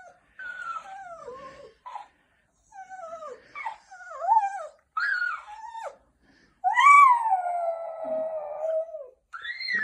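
Jack Russell terrier whining in a run of short, sliding cries, then giving one long howl about seven seconds in that sinks slowly in pitch.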